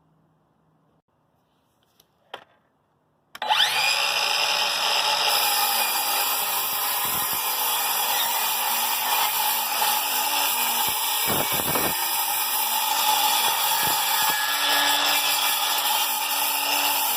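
Craftsman 20V cordless miter saw: a small click, then about three seconds in the motor starts suddenly with a rising whine as the blade spins up, and it runs steadily at full speed.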